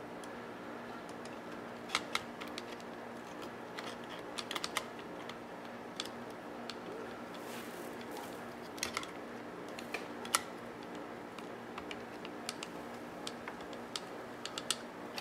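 Scattered light clicks and taps of small parts being handled and fitted back into an Akai GX-Z9100EV cassette deck's tape transport during reassembly. A faint steady hum runs underneath.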